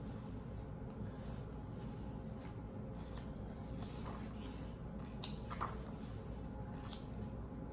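Faint rustling and sliding of paper as a hand brushes across and turns the pages of a large hardcover art book, in soft scattered swishes.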